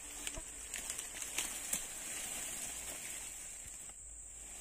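Insects droning steadily at a high pitch, with a few light clicks and rustles in the first two seconds.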